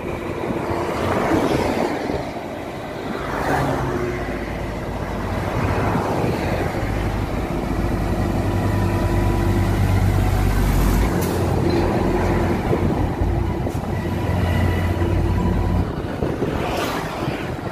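Heavy diesel trucks running slowly past at close range. The rumble grows loudest through the middle as the Hino FM 2P tanker tractor passes by, with brief swells of tyre noise as other vehicles go by.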